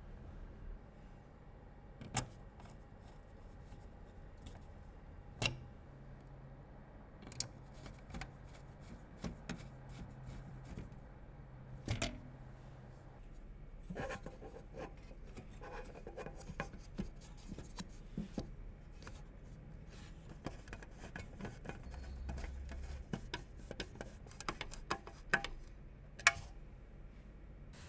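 Hands working on PC parts: scattered sharp plastic and metal clicks and taps with light rustling, busier in the second half and with the loudest click near the end.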